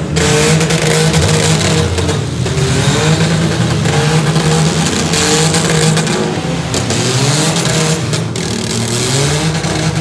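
Several compact demolition-derby cars' engines revving hard at once, their pitches rising and falling, with a few sharp bangs of cars hitting each other.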